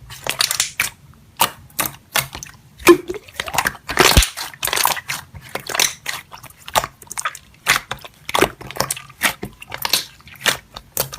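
Slime being pressed and squeezed by hand, giving dense, irregular crackling and clicking pops.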